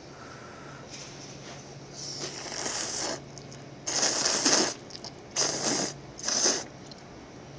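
A person slurping instant tantanmyeon noodles from a cup: four slurps, starting about two seconds in, the second one the loudest.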